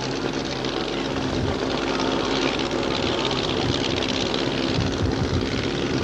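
Drag racing car's engine idling steadily.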